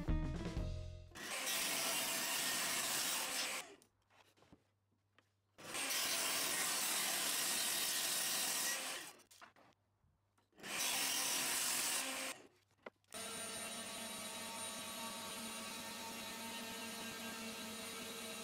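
Table saw cutting through an end-grain hardwood cutting board, in three passes of a few seconds each that break off suddenly into silence. For the last third, the CNC router's spindle runs steadily and more quietly with a few steady tones, while a 16 mm round-nose grooving bit takes a 1 mm pass.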